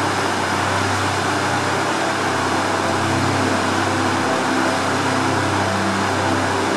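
Cruise ship under way, heard from the stern: a steady rushing of the churning wake and moving air over a low, even hum of the ship's machinery.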